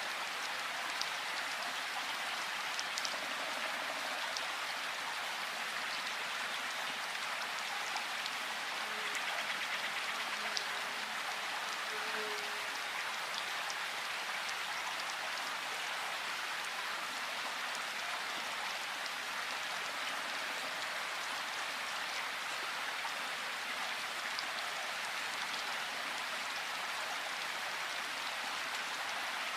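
Steady rain falling in a forest, an even hiss of rain with scattered individual drops ticking.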